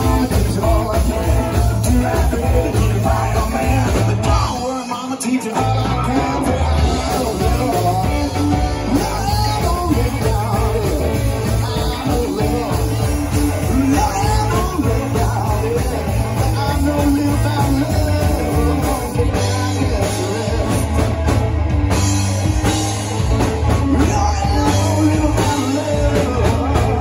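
Live rock band playing loudly through a PA: electric guitars, keyboard and a drum kit, with a singer's voice over them. The drums and low end drop out briefly about five seconds in, then the band comes back in.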